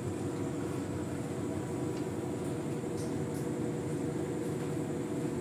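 Steady low hum and rumble of running machinery, with a few faint clicks about two and three seconds in.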